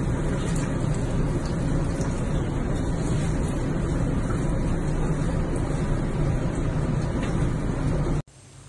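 Steady low rush of water running in a bathtub, cutting off suddenly near the end.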